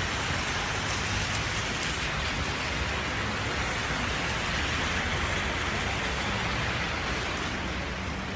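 Small hail mixed with rain falling steadily on wet pavement and asphalt: an even, continuous hiss.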